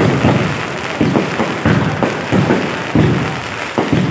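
Fireworks going off in quick succession: a string of overlapping booms, a bit more than one a second.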